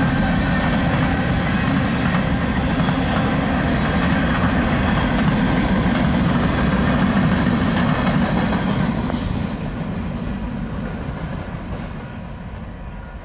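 Freight train cars rolling past: steady wheel-on-rail noise, fading away over the last few seconds.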